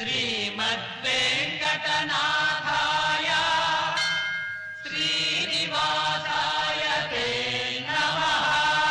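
A Hindu devotional chant sung over instrumental backing music, in phrases with long held notes.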